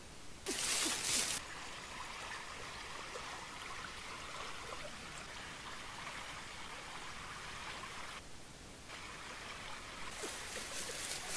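Stream water trickling over rocks, a steady flow. About half a second in, a short, loud burst of rustling leaves and branches. Near the end, more rustling and crackling of brush.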